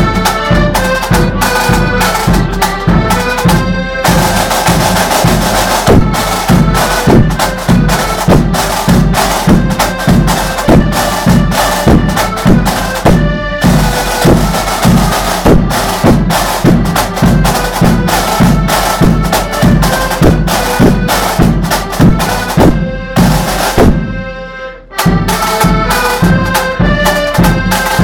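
Accordion band playing a march: accordions hold the melody over a steady drum beat. The music breaks off for a moment near the end, then starts up again.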